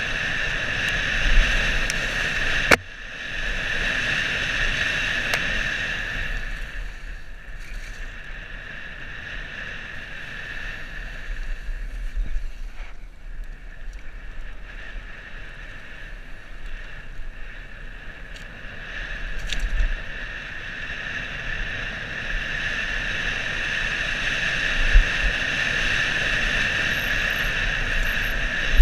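Downhill mountain bike descending a dirt forest trail, heard from a helmet camera: wind rushing over the helmet and microphone along with the rattle of the bike and tyres on the dirt. A sharp knock about three seconds in, and a couple more bumps later on. The rush is weaker through the middle stretch.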